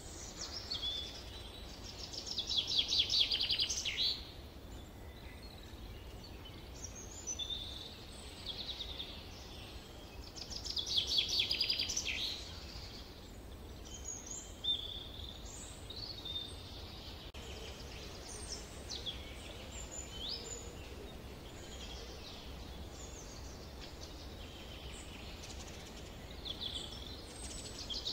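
Songbirds singing in a summer forest: one bird repeats a song of about two seconds made of fast repeated notes three times, near the start, in the middle and near the end, with short chirps and calls from other birds in between. A low steady rumble runs underneath.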